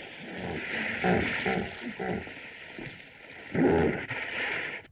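Hissy soundtrack of a 1940s black-and-white film serial: indistinct commotion and muffled voices over steady hiss, with a louder burst a little before the end.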